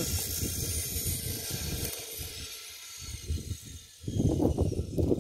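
Wind buffeting the microphone with a low, uneven rumble. About four seconds in, a goat starts bleating loudly.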